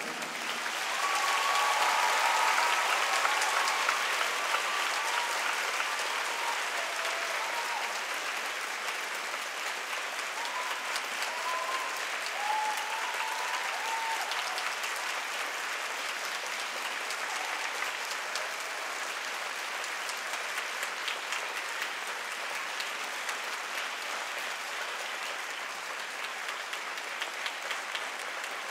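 Theatre audience applauding after the music ends. The applause swells in the first few seconds, then carries on steadily, slowly easing.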